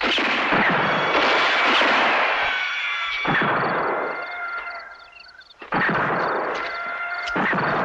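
Gunshot-like blasts in a sampled sound-art composition: four sudden bangs, each trailed by a long decaying wash of noise, over steady high tones that hang beneath them.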